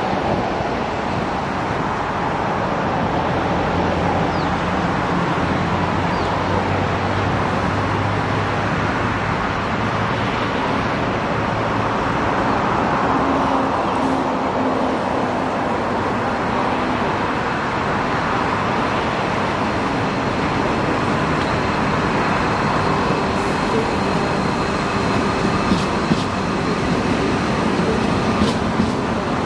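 Diesel-electric freight locomotives, a G class leading a B class, running steadily as they approach with a heavy train, the engines' low drone underneath the rumble. A faint high-pitched wheel squeal creeps in over the last third.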